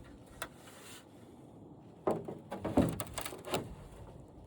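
A single click, then about two seconds in a short clatter of knocks and scrapes as hard parts are handled.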